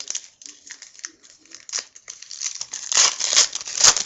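Plastic trading-card pack wrapper being handled and torn, a run of crinkling and tearing that gets much louder about three seconds in.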